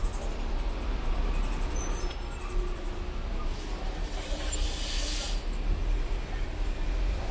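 Street traffic, with cars and a bus in slow-moving traffic making a steady low rumble. A short hiss comes about four and a half seconds in.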